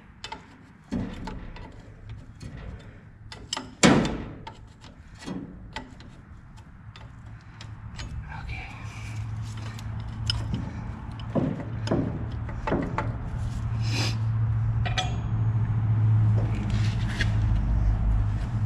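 Scattered metal clinks and knocks of a wrench on the carburetor's fittings, with one loud knock about four seconds in. A low steady hum builds from about halfway and grows louder toward the end.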